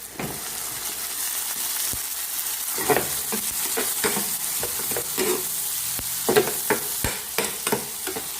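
Sliced ham going into a hot pan of butter, tomato, onion and garlic. The sizzle jumps up as it goes in, then keeps frying steadily while a utensil scrapes and clicks against the pan as it is stirred, most often near the end.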